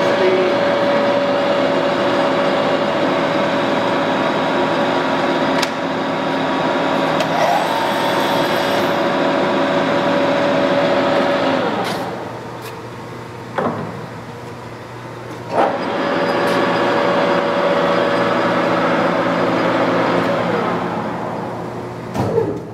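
TOS SN40C lathe running under power, its geared headstock and 7-1/2 hp main motor giving a steady, loud gear whine. About twelve seconds in it runs down and stops, two sharp clunks follow, then it starts up again with the same whine and runs down once more near the end, with a clunk just before the end.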